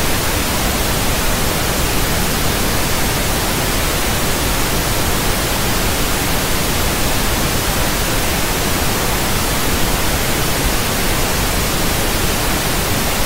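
TV static: a loud, steady hiss of white noise spread evenly from low to high pitches, with no breaks or changes.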